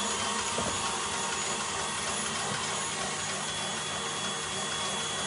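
Stand mixer running steadily as it whips meringue: a constant motor whir with a thin high whine on top.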